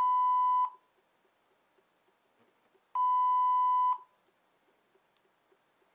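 Two one-second electronic beeps from an HP iPAQ 210 PDA's speaker, about three seconds apart, each a single steady tone: the alarm tone of an alarm-timer program being tested.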